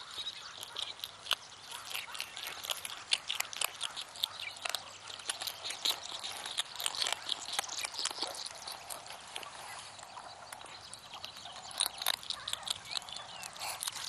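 A meerkat chewing a scorpion: irregular, rapid crunching clicks, with short calls from the meerkats in among them.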